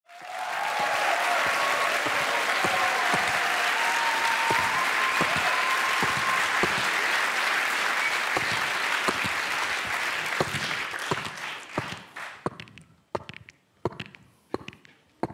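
Studio audience applauding, a dense steady clapping that thins out after about eleven seconds into scattered single claps.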